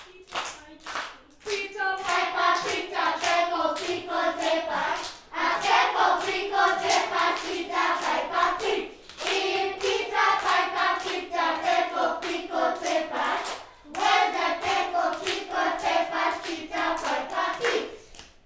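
A class of young children singing a song together in unison while clapping a steady beat with their hands. The clapping starts first, the singing joins about a second and a half in, and the song breaks briefly between phrases every few seconds.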